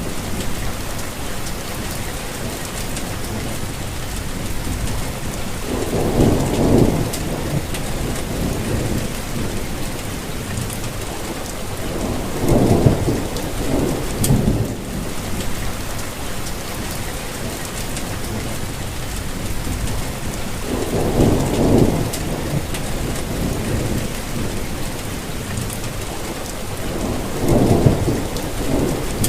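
Steady rainfall, with low rumbles of thunder swelling up and fading about four times.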